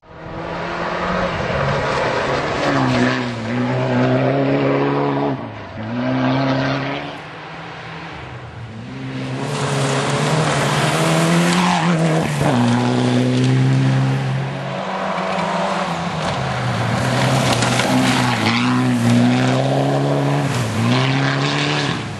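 Mitsubishi Lancer Evolution rally car's turbocharged four-cylinder engine at hard throttle on gravel, the revs climbing and dropping again and again as the driver shifts and lifts for corners. Gravel and tyre noise runs under the engine note.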